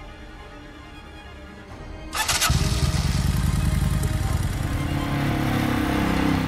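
Motorcycle engine starting about two seconds in, then running loudly as the bike pulls away.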